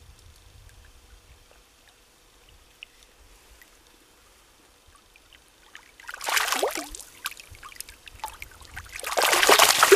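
A large fish thrashing at the surface of a shallow stream: a burst of splashing about six seconds in, and a longer, louder bout of splashing near the end.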